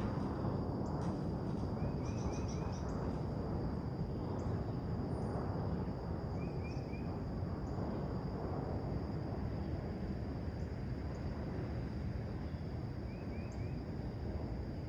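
A steady low rumble of background noise with a faint steady high drone, over which a small bird gives quick three-note chirps three times, with scattered faint high chips from other birds.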